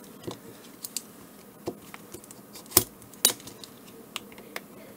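A fine blade cutting along the glued seam of a small plastic battery case, giving irregular sharp clicks and snaps of the plastic, two louder ones a little past the middle.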